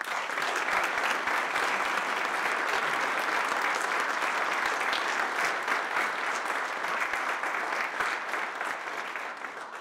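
Audience applauding steadily in a room, tapering off near the end.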